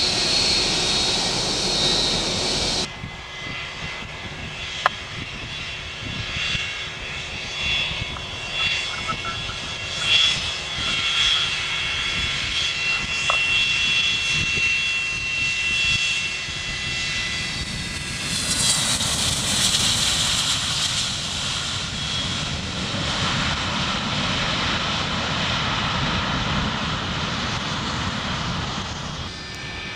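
Jet airliner turbofan engines running: rushing jet noise with a steady high whine. The sound changes abruptly about three seconds in, and it swells louder and brighter about two-thirds of the way through as a jet passes.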